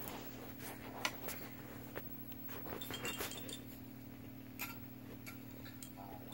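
Scattered light clicks and a brief high tinkle about three seconds in, fitting a baby's plush rattle toy being jiggled, over a steady low electrical hum.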